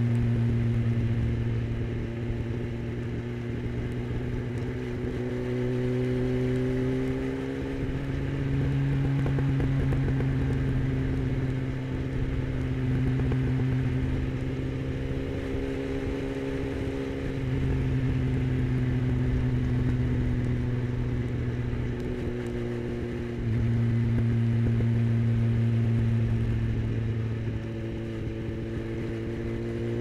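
2009 Honda CBF1000's inline-four engine running at cruising revs, its pitch sliding gently down and up again as the throttle is eased off and reopened, with the engine getting louder about 8, 17 and 23 seconds in. Wind rush over the rider's helmet runs underneath.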